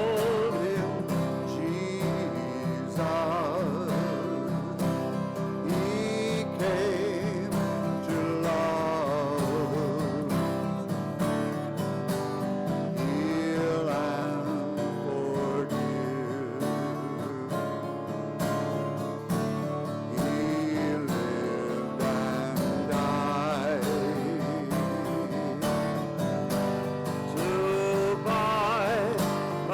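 Music: a slow song with guitar accompaniment and a melody line with vibrato.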